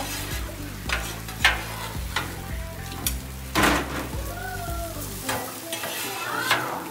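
A metal spatula scraping and clicking across the steel top of a Blackstone griddle as grilled pineapple chunks are lifted off, several sharp scrapes with the loudest a little past halfway. Food sizzles on the hot griddle underneath.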